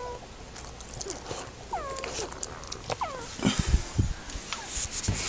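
Sleeping Boston Terrier puppy snoring: a few short, high squeaky whistles that slide down in pitch, about two and three seconds in, followed by rougher noisy rustles near the end.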